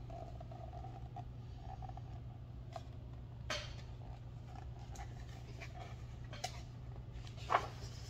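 Low steady hum of a quiet room, with a few brief soft taps and rustles as a hardcover picture book is held and handled, the clearest near the end.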